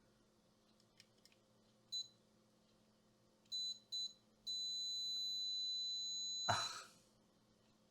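Multimeter continuity beeper sounding as probes touch a circuit-board track: one short high beep, then two short beeps, then a long steady beep of about two seconds while contact holds. The long beep ends with a short loud rustle or knock.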